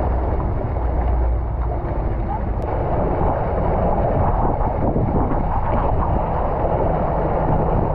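Boat engine running steadily under way, a constant low rumble mixed with rushing water and wind buffeting the microphone.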